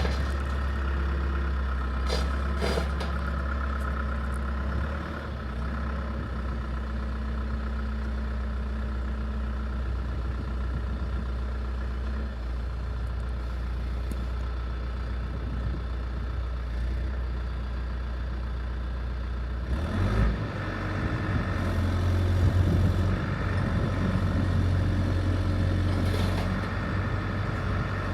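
Bell 315SJ tractor loader backhoe's turbocharged diesel engine running steadily, with a few short knocks about two seconds in. About twenty seconds in the revs rise, and it runs louder at the higher speed.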